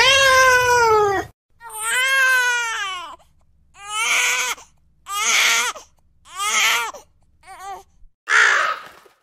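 Wailing cry in about seven sobbing bouts: the first two long and falling in pitch, the later ones shorter.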